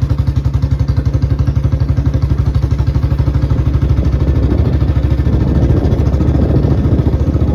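Motorcycle engine running with an even low-pitched beat, about ten beats a second, getting a little fuller in the second half as it picks up.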